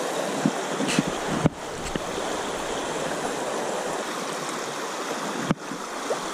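Creek water rushing over a shallow rocky riffle: a steady wash of noise, with a few faint clicks in the first second or so and two brief breaks in the sound.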